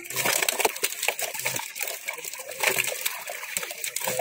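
Fish thrashing in a drag net packed with a pond catch: water splashing and sloshing in a dense, irregular patter of small slaps.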